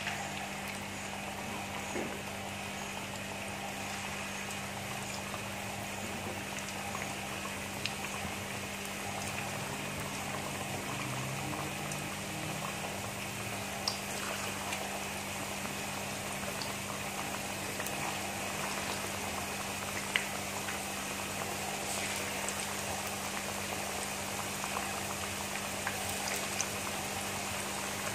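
Hot oil in a kadai sizzling and bubbling steadily as pakoras of gram-flour batter with spinach, potato and onion deep-fry, more batter being added by hand.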